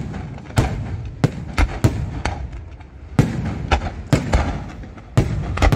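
Fireworks display: aerial shells bursting overhead in a rapid, uneven series of loud bangs, about a dozen in a few seconds, each trailing off before the next.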